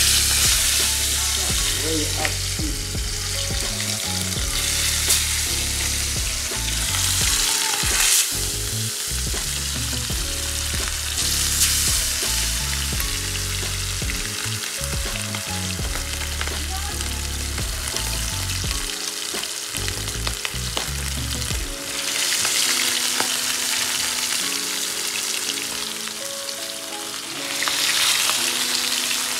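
Barracuda steaks frying in hot oil in a stainless-steel pan on a gas stove: a steady, loud sizzle that swells now and then.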